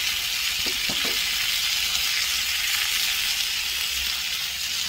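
Pork spare ribs sizzling steadily as they sear in hot oil in a pan.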